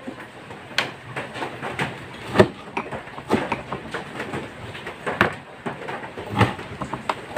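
Large kitchen knife chopping grilled pork on a wooden cutting board: irregular knocks of the blade striking the board, the loudest about two and a half seconds in.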